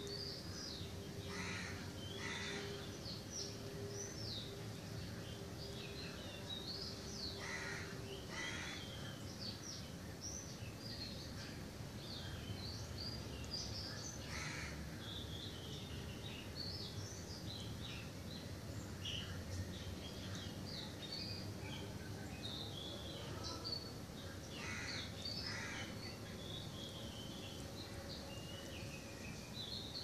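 Many birds chirping and twittering without a break. Louder, harsher calls come in pairs several times, and a faint steady hum runs for the first eight seconds or so.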